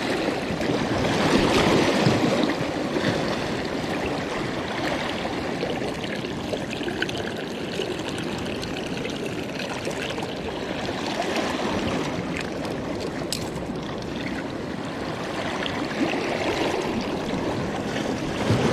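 Seawater washing and trickling around shoreline rocks, a steady rush that swells briefly about a second or two in.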